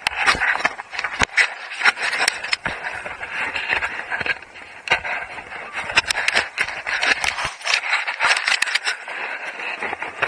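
Skis scraping over snow, the hiss swelling and easing, with many sharp clicks and knocks throughout.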